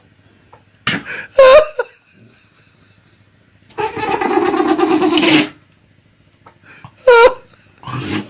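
A dog sneezing in short, sharp bursts, twice about a second in and once near the end, with a longer stretch of laughter in the middle.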